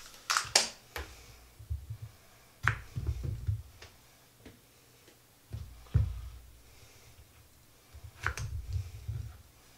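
Knocks and taps of a knife and food being handled on a wooden cutting board. Near the end comes a quick run of knife cuts as a long green pepper is sliced on the board.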